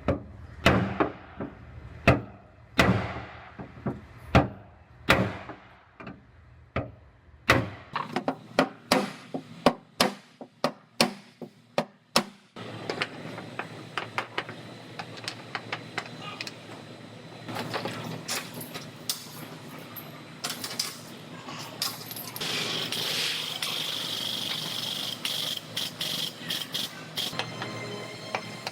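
Hammer blows ringing on the sheet metal of a car's quarter panel as it is worked out, spaced out at first and then coming faster. From about halfway through, a steady, hissing power-tool sound with scattered clicks takes over.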